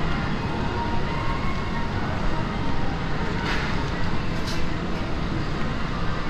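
Steady background noise of a busy indoor shopping centre, with faint voices in the mix and a couple of brief clatters in the middle.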